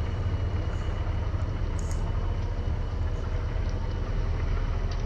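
Agco Star 8360 tractor's diesel engine running steadily as an even, deep drone while pulling a slurry tank.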